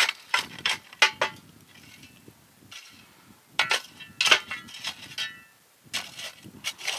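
A metal shovel scraping up hot charcoal and tipping it onto a cast-iron camp oven's lid, the coals clinking and rattling in three bursts with short pauses between. The coals are heaped on top so the damper inside bakes from above as well as below.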